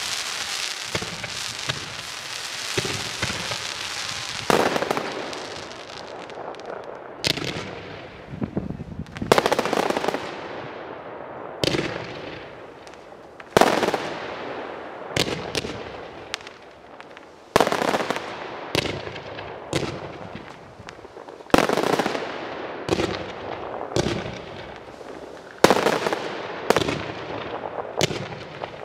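Fireworks display: a few seconds of continuous dense crackling, then a string of sharp bangs from bursting aerial shells, about one every second or two, each trailing off in crackle and echo.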